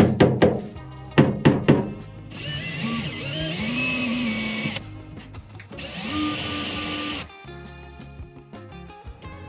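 A small hammer taps sharply a few times on a plywood panel, then a cordless Makita drill-driver runs in two spurts, each a couple of seconds long, its motor whine shifting in pitch as it drives screws.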